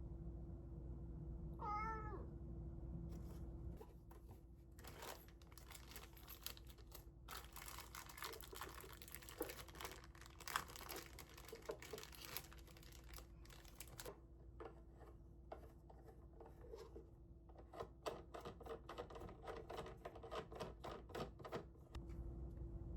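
A cat meows once, briefly, about two seconds in. Then comes a long run of rapid clicking and rattling, and later quicker separate trains of clicks, over a faint steady hum.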